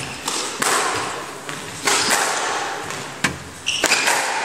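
Squash rally: a squash ball cracking off rackets and the court walls, several sharp hits each followed by a short echo. Brief squeaks, likely court shoes on the hardwood floor, come near the end.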